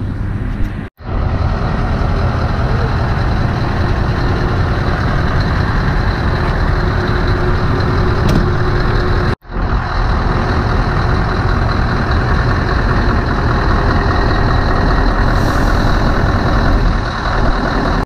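Steady heavy truck engine running, a dense low rumble, cut off sharply for an instant twice, about a second in and about halfway through.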